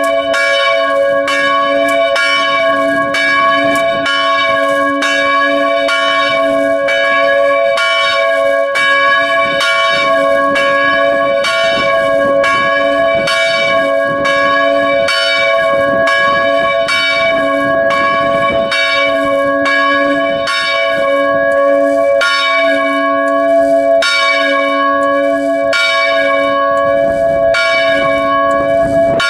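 Swinging church bells ringing together, heard close up from inside the belfry. Their clappers strike steadily, about twice a second, over sustained overlapping ringing tones.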